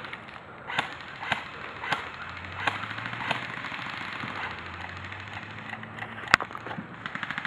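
Airsoft guns firing single shots: sharp cracks about half a second apart through the first few seconds, then one louder crack a little over six seconds in, over a steady hiss.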